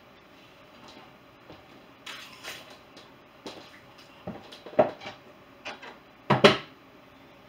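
Dishes being handled at a kitchen dishwasher and counter: a string of separate clinks and knocks, with the loudest clatter near the end.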